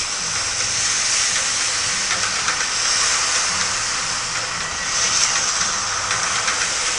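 Heavy storm surf breaking, with wind: a continuous rushing hiss that swells about three seconds in and again about five seconds in.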